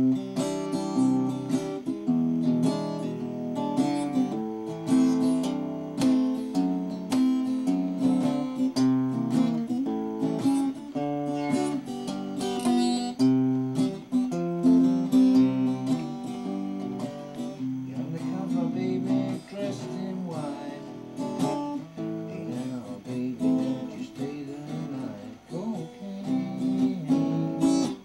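Acoustic guitar being played: quick picked notes and strums over a low note that keeps ringing underneath, the playing thinning out somewhat in the second half.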